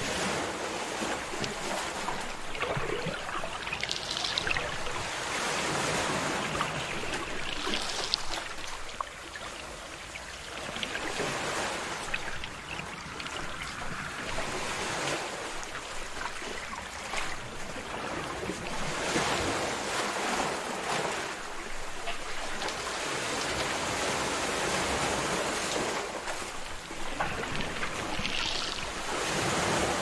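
Ocean surf: waves breaking and washing in, the rush swelling and easing every few seconds.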